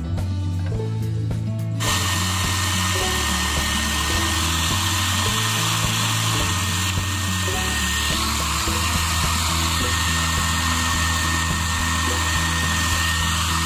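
Handheld hair dryer switching on about two seconds in and running steadily with a high tone, blowing hot air to soften vinyl wrap so it can be pressed around a table edge. Background music plays underneath.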